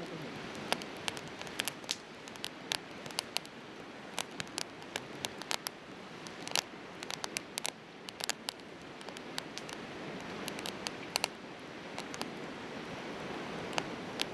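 Firewood burning in a Coleman Fire Disc fire pit, crackling with sharp, irregular pops over a steady rushing hiss.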